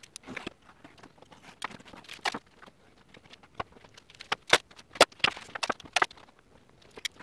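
Masking tape being pulled off the roll, torn and pressed down onto a vinyl dash trim panel: irregular crackles and short rasps with light taps.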